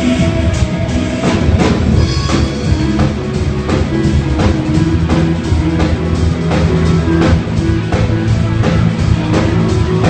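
Live rock band playing at a sound check: a drum kit keeps a steady beat of about two hits a second under held bass notes and electric guitar.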